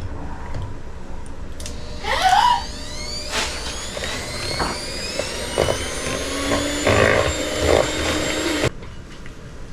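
Electric kitchen mixer starting up and speeding up with a rising whine, then running steadily with a few knocks as it mixes thawed bananas into cake batter, and cutting off suddenly near the end.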